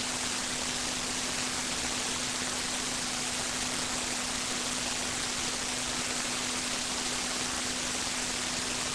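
Steady hiss from a webcam's microphone with a steady low hum under it, no other sound.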